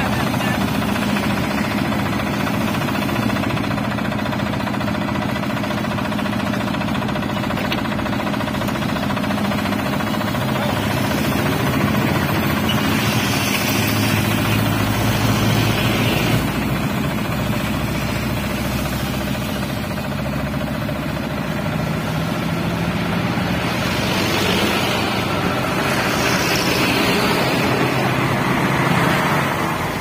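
Asphalt distributor truck's engine running steadily while it sprays tack coat from its rear spray bar, a deeper engine note coming in about halfway. A hiss swells twice, around the middle and near the end.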